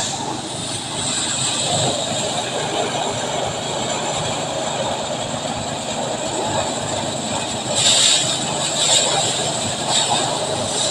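Small engine of a rice threshing machine running steadily, with a few brief louder rushes near the end.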